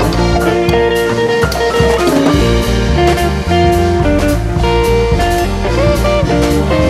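Instrumental background music with a steady drum beat and bass line, and a lead instrument playing held notes that bend in pitch a couple of times.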